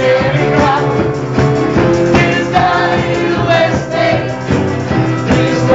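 Restaurant waitresses and cooks singing together in chorus, with sustained sung notes over a steady musical accompaniment.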